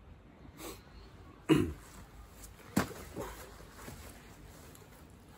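A few short knocks and rustles of a phone camera being handled close to the microphone, the loudest about one and a half seconds in and a sharper knock near three seconds.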